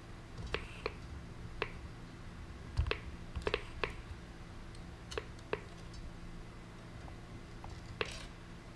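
Irregular sharp clicks from laparoscopic needle holders and graspers as their jaws open, close and meet while tying a suture knot, about ten in all with a soft knock about three seconds in, over a steady low hum.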